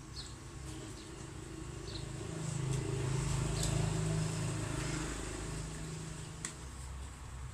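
A motor vehicle passing by, its engine hum swelling to a peak about halfway through and then fading away. A light click of a spoon against a bowl comes near the end.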